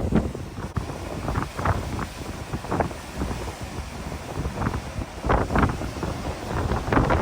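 Wind buffeting the microphone in gusts, a rough rumbling noise that swells and drops.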